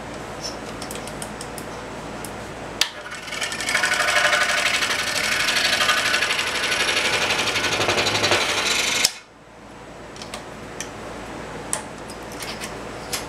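Hand tool cutting into a small wooden workpiece, played back sped up so the strokes run together into a fast, even chatter. It starts with a click about three seconds in and cuts off abruptly about nine seconds in, with light handling clicks before and after.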